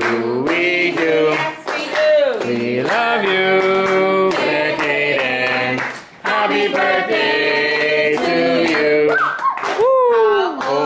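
A group of voices singing a birthday song together, with hands clapping along.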